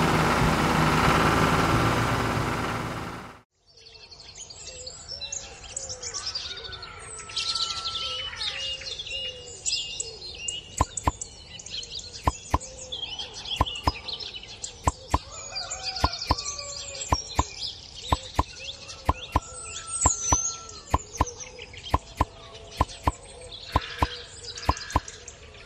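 A toy tractor's motor runs steadily and cuts off suddenly about three and a half seconds in. After it come birds chirping and calling, with sharp clicks at irregular intervals from about ten seconds in.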